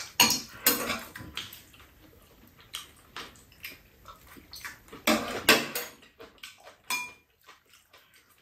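Metal spoons and chopsticks clinking and scraping against bowls and a frying pan during a meal. The clicks are scattered and irregular, a few with a short ring, and the loudest come just after the start and about five seconds in.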